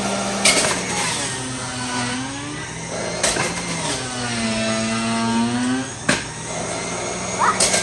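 Stainless-steel centrifugal juicer running, its motor pitch sagging and rising as fruit is pressed down the feed chute with the pusher. Three sharp knocks come about three seconds apart.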